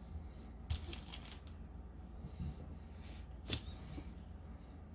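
A small stack of Pokémon trading cards handled and squared up between the hands: soft card rustles with two brief clicks, the sharpest about three and a half seconds in.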